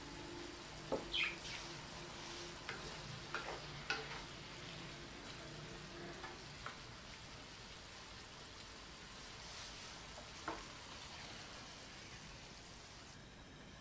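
Diced vegetables and salami in tomato sauce simmering with a quiet sizzle in a frying pan, while a wooden spatula stirs them, giving a few sharp knocks and scrapes against the pan.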